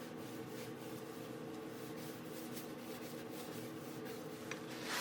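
Wood lathe motor humming steadily, with faint scratchy rubbing against the wood and a short louder scrape near the end.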